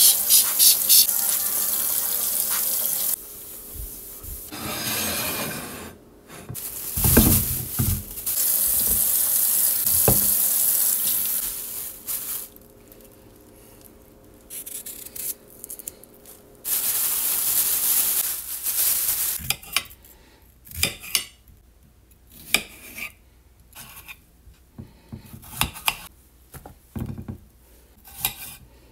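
A kitchen tap running in three stretches, which start and stop abruptly. Then a knife slices a cucumber into rounds on a plate, a short sharp click at each cut, about one or two a second.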